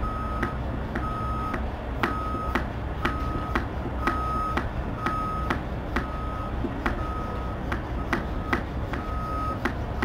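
Bicycle pump pressurizing a RoadShower water tank by hand: about one stroke a second, each with a click and a steady high squeal of about half a second.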